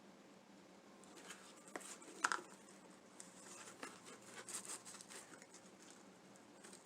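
Faint rustling of rope being handled and threaded through a craft heart, with a few light clicks and taps, the sharpest about two seconds in.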